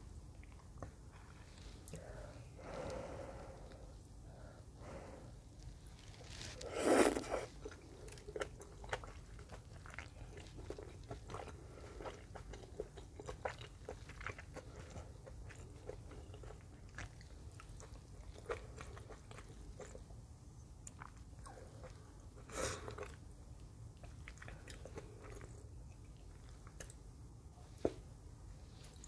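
Close-miked chewing and biting while eating ramen noodles, dumplings and fishballs: a steady run of small wet clicks and mouth sounds. Two short, louder bursts come about 7 seconds in and again about 23 seconds in.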